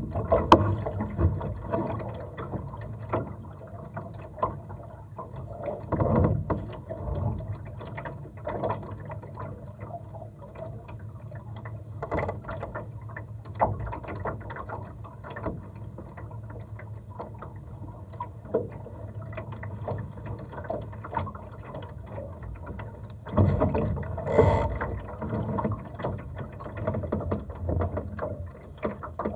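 Water lapping and slapping against the hull of a Laser sailing dinghy moving in light wind, with frequent small knocks and taps from the boat and its rigging. A louder patch of splashing and knocking comes about five seconds before the end.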